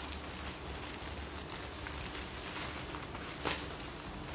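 Plastic poly mailer bag crinkling and rustling as hands open it, with one louder crackle near the end.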